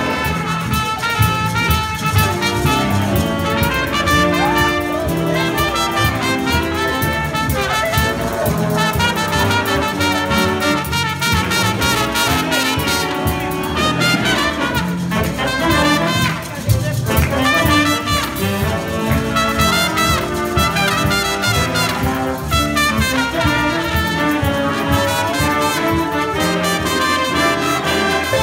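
Jazz big band playing live: trumpets and trombones carrying the tune with saxophones over drum kit and upright bass.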